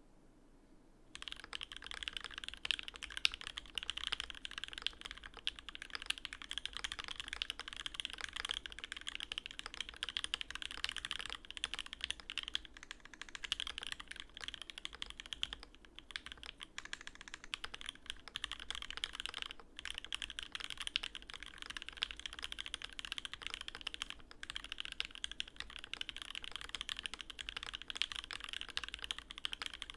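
Continuous typing on a custom Alice-layout mechanical keyboard with an acrylic case and plate, SoHo (Durock) linear switches lubed with 205g0 and fitted with switch films, and GMK doubleshot ABS keycaps on a deskmat: a dense patter of keystrokes that starts about a second in, with a few brief pauses.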